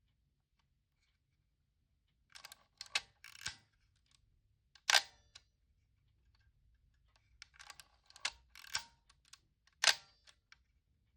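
Topcon Super D mechanical 35mm SLR being operated twice: each time a short run of clicks lasting about a second, then one sharp, loud clack as the shutter and mirror fire.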